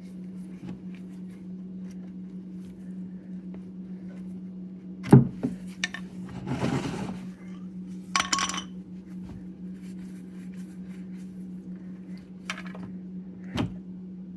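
Metal tools clinking and knocking against the oil drain plug and pan while an 8mm hex bit works the plug loose: a few sharp clinks, one of them ringing, and a short scrape, over a steady low hum.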